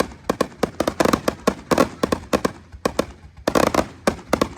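Fireworks display: a rapid, irregular string of loud bangs and crackling reports, several a second.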